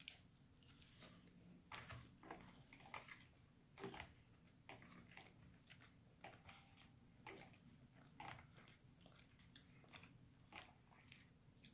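Faint, close-up chewing and lip-smacking of a person eating seafood, as irregular soft wet clicks and smacks throughout.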